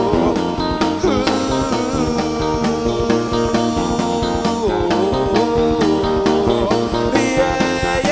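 Indie rock band playing live: guitar over bass and a steady drum beat.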